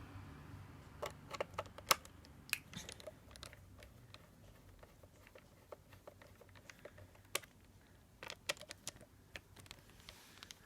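Light, irregular plastic clicks and taps from handling an HP Omnibook XE3 laptop, like keys being pressed or the case being worked on, in two clusters with sparser clicks between.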